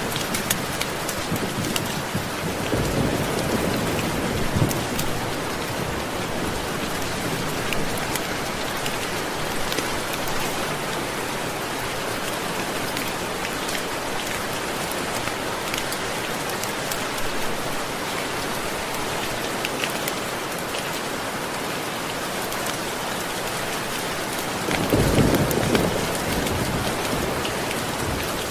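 Steady heavy rainfall, with two low rumbles of distant thunder: a softer one a few seconds in and a louder one near the end.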